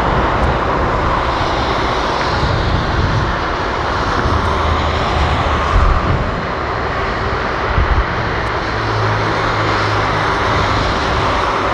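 Airbus A330F cargo jet's engines running steadily on the runway, a continuous jet whine and rumble. Two short low thumps come at about six and eight seconds in.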